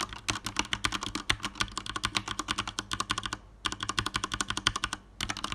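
Fast typing on a Ducky Shine 2 mechanical keyboard with Cherry MX Red switches: smooth linear switches with no tactile bump. A rapid run of keystroke clacks pauses briefly about three and a half seconds in, then carries on.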